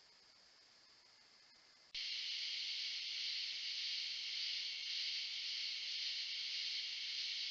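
Dense chorus of night insects, a steady high-pitched drone that starts suddenly about two seconds in; before that only a faint insect trill is heard.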